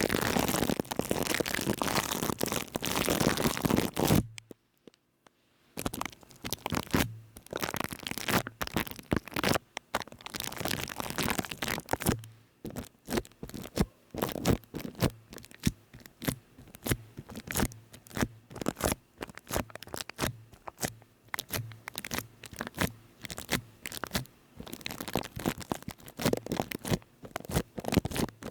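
Close-miked ASMR scratching and scraping: a dense crackly rubbing for about four seconds, a break of a second and a half, then quick irregular scratchy strokes, several a second.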